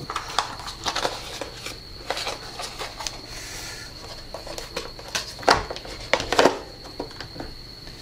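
Plastic dust box of a mini robot vacuum being handled and seated in the vacuum's body: light plastic clicks and rattles, with two sharper knocks about five and a half and six and a half seconds in. A faint steady high whine runs underneath.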